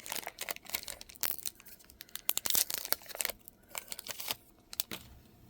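Wrapper of a trading card pack being torn open and crinkled by hand: a dense run of crackles that thins out over the last couple of seconds and stops shortly before the end.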